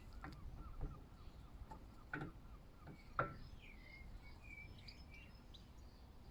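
A few faint clicks and knocks from brake parts being handled and fitted, with a bird chirping a short twittering song about halfway through.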